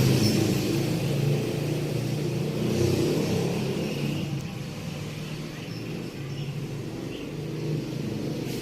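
Motor scooter engine running, its level sagging slowly and rising again near the end.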